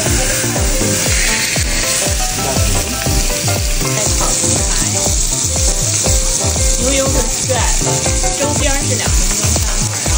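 Two beef steaks sizzling steadily as they sear in oil in a stainless steel skillet, under background music with a steady beat.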